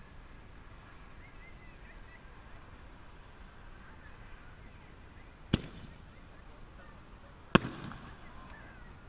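A 5-inch aerial firework shell fired from a fiberglass mortar tube. A sharp bang from the launch comes about five and a half seconds in. About two seconds later there is a louder bang as the shell breaks overhead into a round burst.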